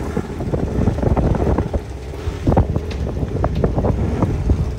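Wind buffeting the microphone: a loud, low rumble with scattered short knocks and pops.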